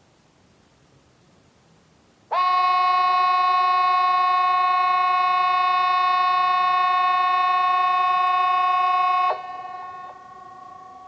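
Hesa Fredrik, the Swedish outdoor warning siren, sounding one steady, many-toned blast. It comes on suddenly about two seconds in, holds for about seven seconds, then cuts off, leaving a fainter echoing tail. A seven-second blast is the pattern of the Swedish 'Important message to the public' warning signal.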